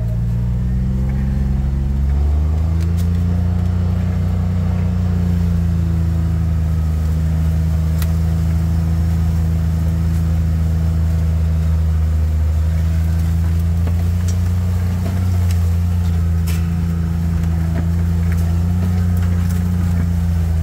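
Side-by-side UTV engine running under light load as it crawls along a leaf-covered trail, heard from the driver's seat. Its pitch rises over the first two seconds and then holds steady, with a few faint clicks over the top.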